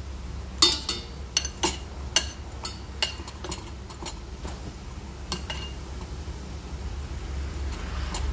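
A metal utensil clinking and tapping against a bowl as sausage slices are set in place: a quick run of sharp clinks in the first three seconds, a few more around five seconds in, and one near the end, over a steady low hum.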